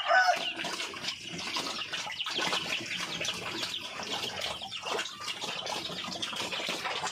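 Several pigs eating together at feed, with continuous wet smacking and slurping.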